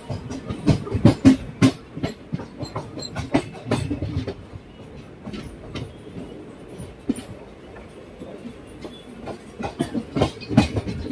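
A moving train's wheels clattering over the rail joints: runs of sharp clacks in the first couple of seconds and again near the end, with steady running noise between.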